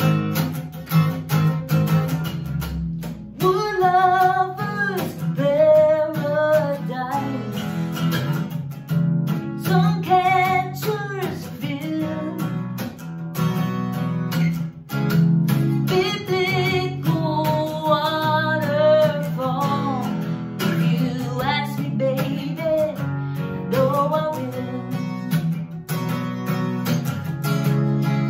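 Acoustic guitar strummed steadily, with a woman singing over it in several phrases; the voice comes in about three and a half seconds in, after a short guitar-only stretch.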